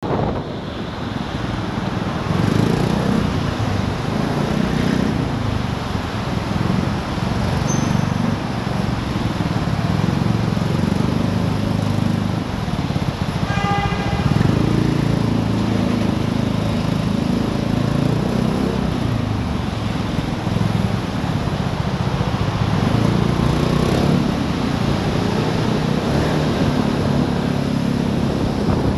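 Vespa GTS 250 scooter's single-cylinder four-stroke engine running under way, its pitch rising and falling with the throttle, over a steady rush of road and wind noise. A short horn beep sounds about halfway through.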